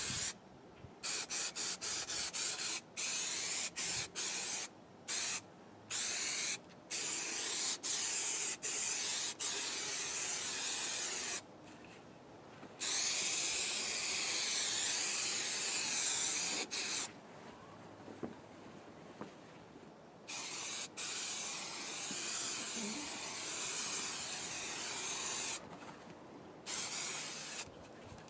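Aerosol can of spray adhesive hissing in a string of short bursts, then in longer sprays, the longest and loudest lasting about four seconds from roughly 13 s in.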